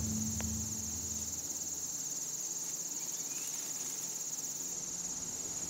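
Crickets trilling in a steady, high-pitched chorus, with a low hum fading out over the first second and a half.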